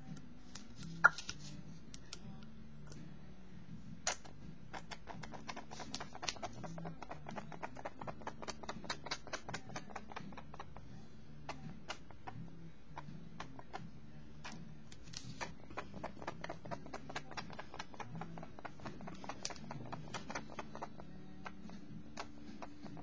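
Rapid light clicking taps, several a second, from about five seconds in until near the end, with one sharp louder click about a second in: an ink dropper being tapped to spatter drops of ink onto paper.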